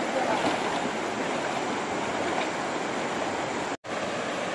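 Shallow stream running steadily over stones, a continuous rushing of water that cuts out for a split second near the end.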